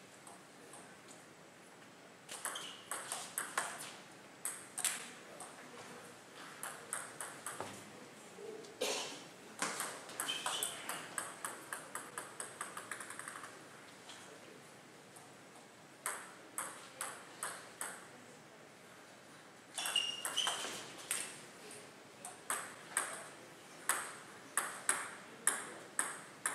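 Table tennis ball rallies: the ball clicks off the rubber paddles and the table in quick alternating taps. There are four bursts of play, with short pauses between the points.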